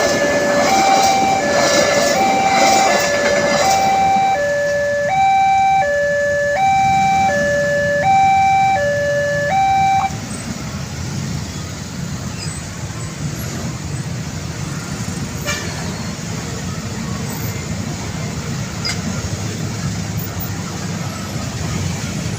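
Level crossing warning alarm sounding an alternating two-tone signal, each tone about half a second, over the rattle of a passing train that fades out after a few seconds. The alarm cuts off about ten seconds in, leaving a steady low rumble.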